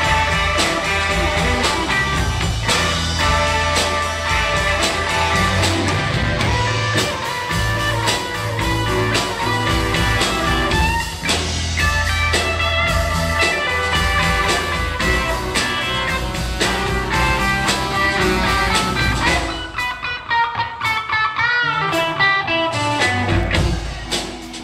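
A band playing blues-rock with guitar out front over bass and drums. About twenty seconds in, the bass and drums drop away for a couple of seconds, leaving higher wavering notes, and the full band comes back in near the end.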